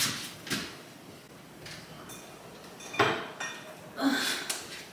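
Knocks and clatter of household things being handled out of sight, with one sharp knock about three seconds in.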